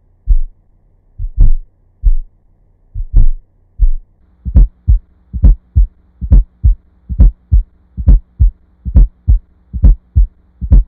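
Heart sounds through a stethoscope with an S4 gallop: low thuds that settle about four seconds in into steady groups of three, a soft extra sound just before each first heart sound, about once every 0.9 seconds. The S4 is an abnormal sound, heard in cardiomyopathies, systemic hypertension and hypertrophic heart failure. A faint steady hum runs underneath.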